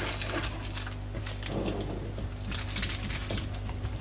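Dishwasher tablets being taken from a box and set down one by one while being counted: a quick, irregular run of light clicks and rustles.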